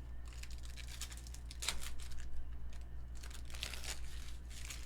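Crinkling and rustling of trading cards and foil pack wrappers being handled, in several irregular bursts over a low steady hum.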